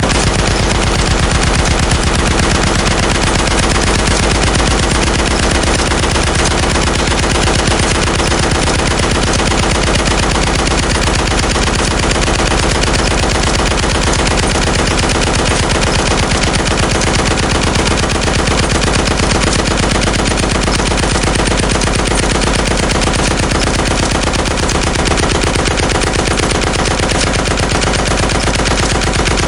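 Heavy machine gun firing continuously in one long, unbroken stream of rapid shots, loud throughout.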